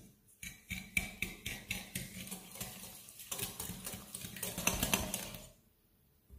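Eggs and sugar being beaten by hand in a bowl: a utensil clicks against the bowl about four times a second, then speeds into a denser stretch of stirring that stops shortly before the end.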